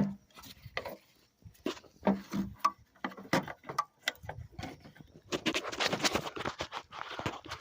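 Small clicks and knocks of a side marker bulb and its socket being handled and worked into a plastic lens assembly. About five seconds in there is a denser run of rubbing and clicking lasting about two seconds.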